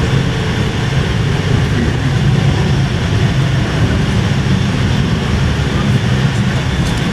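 Tour coach running on the road, a steady low engine and road rumble heard inside the passenger cabin.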